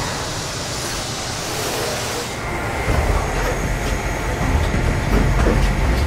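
Automated assembly-line machinery running with a steady mechanical rumble. A hiss comes from about one to two seconds in, and the low rumble grows heavier about halfway through.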